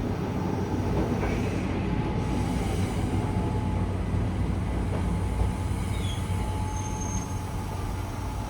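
Keihan 800 series train running along the line, a steady low rumble of wheels on rail heard from inside the car. About five seconds in, a faint steady high-pitched tone joins it.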